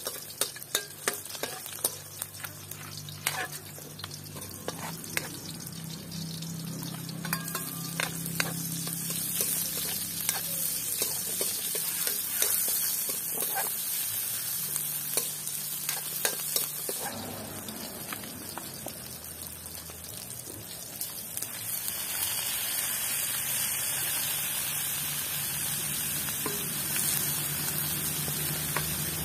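Garlic, onion and ginger sizzling in a hot wok, with a metal spatula scraping and clinking against the pan as they are stirred. About 22 seconds in the sizzling grows louder and fuller as raw chicken pieces go into the pan.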